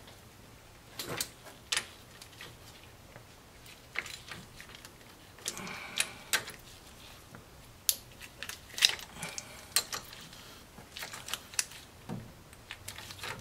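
Socket wrench loosening the rocker-arm bolts on a Nissan H20 engine's cylinder head: irregular sharp ratchet clicks and metal clinks of the socket on the bolts, with a short creak about six seconds in.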